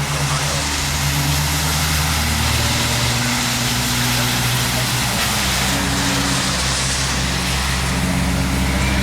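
Steady engine and road noise of a moving vehicle, with low engine tones that shift in pitch a few times.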